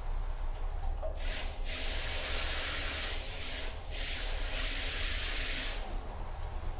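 Water hissing from a pistol-grip hose spray nozzle into an empty plastic drum as it is rinsed out. A short burst comes about a second in, then a long spray of about four seconds that stops shortly before the end, over a steady low hum.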